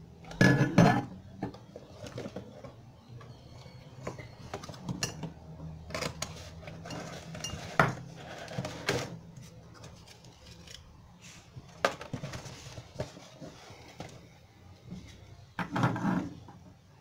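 Unpacking a new angle grinder: plastic packaging rustles and parts clink and knock as they are handled and set on a wooden tabletop. The loudest clatter comes about half a second in and again near the end.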